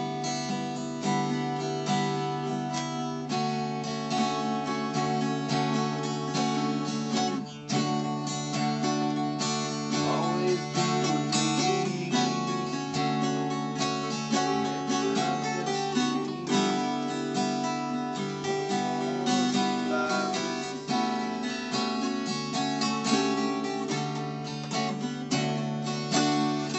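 Two acoustic guitars played together, strummed chords in a steady, continuous rhythm.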